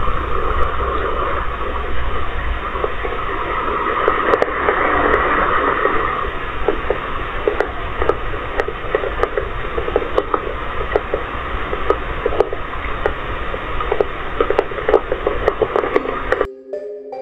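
Rain falling, picked up by a CCTV camera's microphone as a steady hiss with many scattered drop ticks. It cuts off suddenly near the end.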